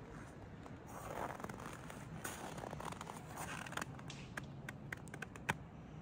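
Handling noise: gloves and winter clothing scraping and rustling against the phone as it is tilted, then a run of sharp clicks, the loudest near the end.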